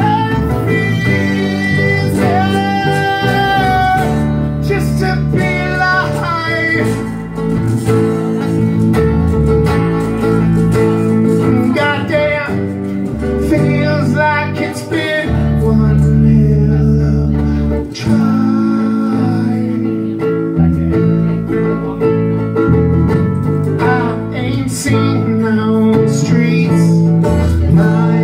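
Small band playing live: acoustic guitars strumming and picking chords, with a man singing over them.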